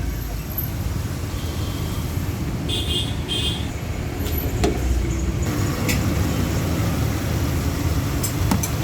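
Steady low rumble of motor vehicles and road traffic. Short high-pitched toots come about one and a half and three seconds in, and a few sharp clicks fall in the second half.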